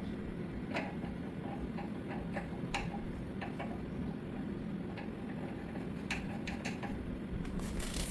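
Scattered light clicks and taps of small metal pump parts and tools being handled and set in place while reassembling a pressure washer pump, over a low steady background.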